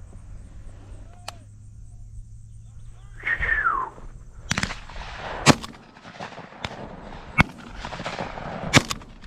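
Shotgun shots fired at a flock of passing doves: about five shots over four seconds starting about halfway in, some louder and nearer, some fainter.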